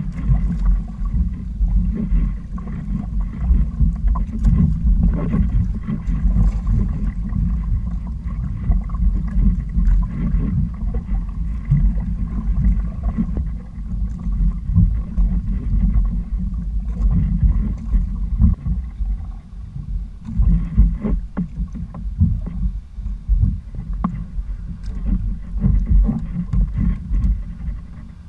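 Wind buffeting the microphone as a low, uneven rumble, with water splashing and lapping against the hulls of a sailing kayak underway.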